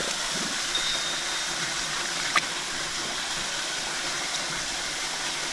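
Creek water rushing steadily, with a single sharp click about two and a half seconds in.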